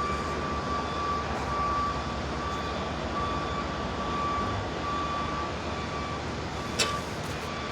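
Steady vehicle running noise with a thin high tone that swells and fades, and one sharp click near the end.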